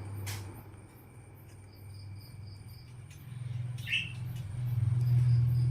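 A pet parrot gives two short chirps, a brief one just after the start and a louder one about four seconds in, over a steady high pulsing trill of crickets. A steady low hum runs underneath and swells near the end.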